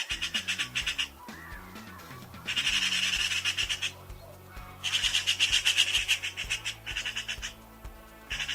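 Magpie chattering: harsh, rapid rattling calls in four bursts, the last one short. Background music plays underneath.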